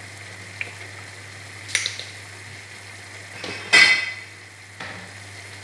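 Kitchen handling noises over a low steady hum: a couple of light knocks, then a loud clatter of utensils about four seconds in and a smaller knock just after.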